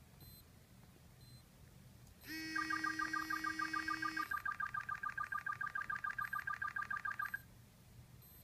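Electronic alert set off by pressing the button on a LINQtoU Bluetooth key-finder tag: a steady buzzing tone for about two seconds, overlapped by rapid warbling beeps alternating between two pitches, about ten a second, that stop abruptly about seven seconds in.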